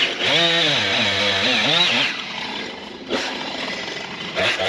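Chainsaw engine revving up and down in a few quick swells, easing off for about two seconds midway, then revving again near the end.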